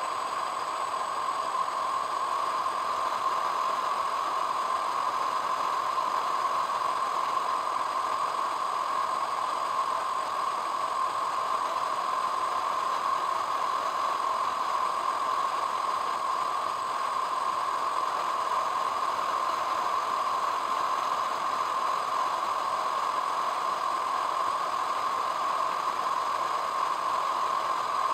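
Steady noise of a car driving at road speed, engine and tyre noise with a constant hiss, unchanging throughout.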